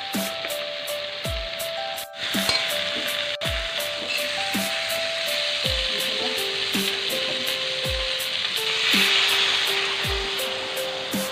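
Herring pieces sizzling in hot oil in a wok while being stirred with a spatula, the sizzle growing louder about nine seconds in. Background music with a steady beat plays over it.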